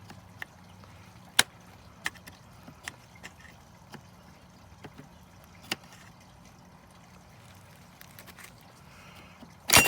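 Large flat-blade screwdriver prying at a steel E-clip on drum brake hardware: scattered sharp metal clicks and scrapes, then a loud snap right at the end as the clip pops off.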